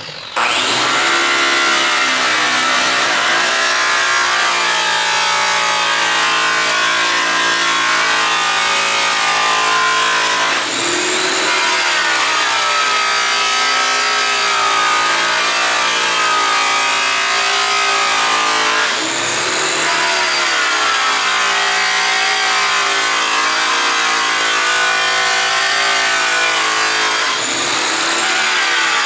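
Handheld electric rotary buffer with a yellow buffing wheel and brown compound running against a bare aluminum driveshaft. It comes on abruptly and runs steadily, with its pitch sagging briefly and recovering three times as the wheel is pressed and moved along the shaft.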